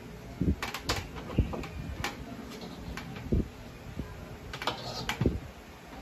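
Scattered light knocks and clicks, about eight of them, from a plastic coffee capsule machine being handled and wiped down with a cloth on a shelf, with rubbing from the cloth between them.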